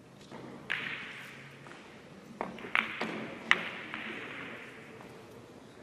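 Billiard balls striking one another in a shot: four sharp clicks over about three seconds, the last and loudest about three and a half seconds in, with a fading hiss of rolling and reverberation after them.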